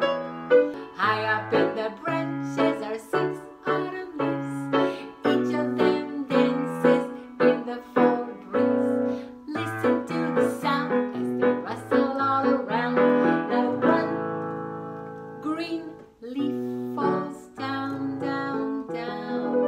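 Electronic keyboard played with a piano voice: an instrumental passage of chords over a stepping bass line, with one chord held for about two seconds about two-thirds of the way through.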